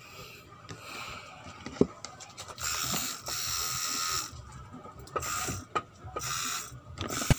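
Coil tattoo machine buzzing in short runs, the longest about two seconds, then two briefer ones near the end, with a few clicks of handling before them.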